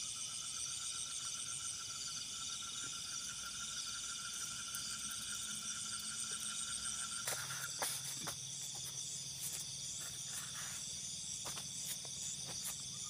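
Night chorus of crickets and other insects: several steady, pulsing trills at different pitches. A few sharp clicks and knocks come about seven to eight seconds in.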